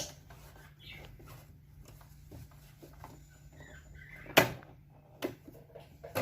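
Scattered light clicks and knocks from handling the sewing machine and fabric, the sharpest about four seconds in and another about a second later.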